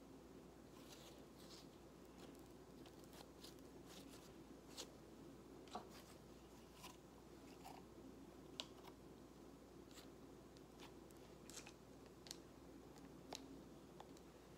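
Faint, scattered small clicks and crackles of soft yellow slime being squeezed, stretched and pressed into a plastic tub by hand.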